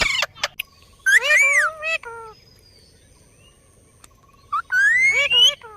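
Indian ringneck parakeet calling: short squawks at the start, a longer call that bends in pitch about a second in, and a call rising in pitch near the end.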